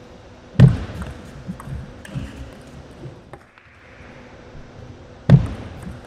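Table tennis ball knocks: a loud, sharp knock about half a second in, followed by a few lighter taps, then another loud knock near the end as play starts again.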